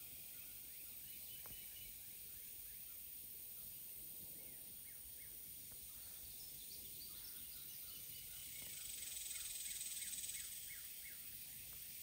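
Faint outdoor ambience by a river: a steady high hiss with a few faint high chirps, swelling a little for a couple of seconds near the end.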